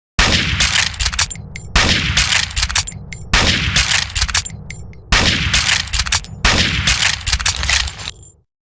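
Mauser Gewehr 98 bolt-action rifle firing five shots about a second and a half apart, each with a long echoing tail. Between the shots come quick metallic clicks of the bolt being worked.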